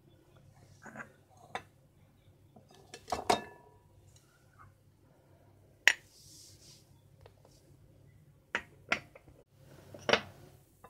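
Glassware handled on a marble worktop as baking ingredients go into a glass mixing bowl: scattered sharp clinks and knocks, about seven in all, with the sharpest about six seconds in.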